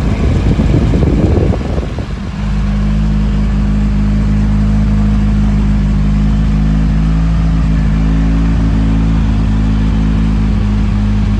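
Nissan 240SX's turbocharged SR20DET four-cylinder engine running. It revs unevenly for the first two seconds, then settles into a steady, even drone at constant speed.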